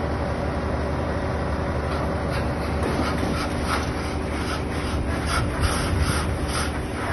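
A fire crackling, with sharp irregular snaps about three times a second starting about two seconds in. Underneath is a steady low engine hum from a fire truck.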